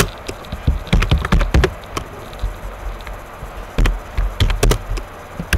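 Computer keyboard being typed on: irregular key clicks, some in quick runs of three or four, others spaced out.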